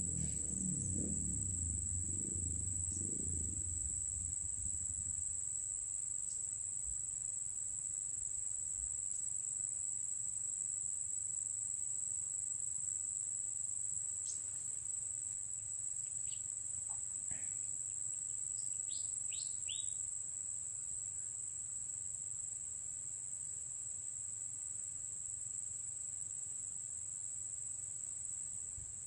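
Insects trilling steadily in a continuous high-pitched drone. A low rumble sounds in the first few seconds, and a few faint short chirps come about halfway through.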